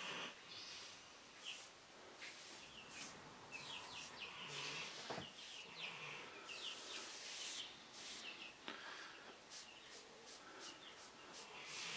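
Faint, irregular rubbing strokes of varnish being applied to the wood, with small birds chirping quickly in the background.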